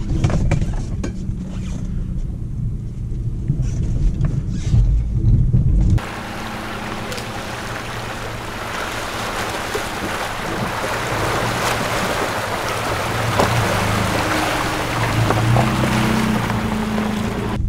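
Maruti Suzuki Brezza's engine and tyres rumbling low inside the cabin as it drives slowly into a stream. About six seconds in, the sound switches suddenly to a steady rush of stream water as the SUV wades across, with its engine running underneath.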